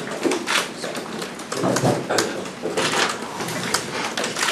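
Quick, irregular clicking of press camera shutters, mixed with the rustle and knocks of a handheld microphone being passed along a table.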